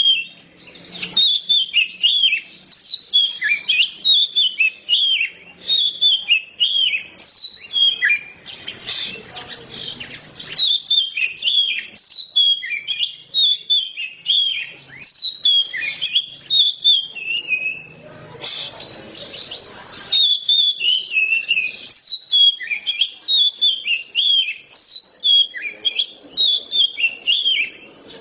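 Oriental magpie-robin (kacer) singing a long, unbroken song of quick, varied whistled notes, several a second. Twice the song is joined by a harsher, noisier passage lasting a second or two.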